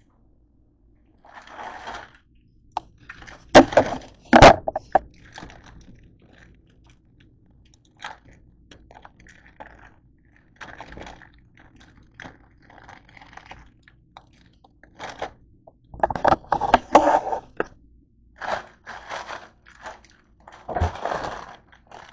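Irregular crinkling and rustling of a plastic bag of grapes being handled, in separate bursts, with two loud sharp knocks about three and a half and four and a half seconds in.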